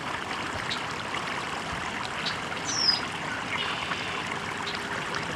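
Water running and trickling steadily over rocks in a shallow stream. About halfway through, a bird gives one short, high chirp that slides downward.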